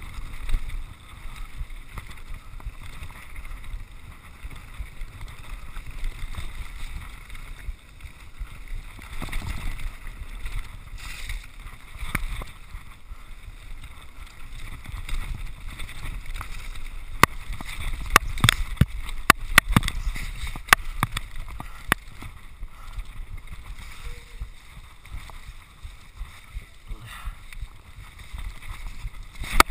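Mountain bike riding down rocky singletrack: a steady low rumble of wind on the camera microphone and tyres rolling over stones. About two-thirds of the way through comes a quick run of sharp knocks and rattles as the bike goes over rougher ground.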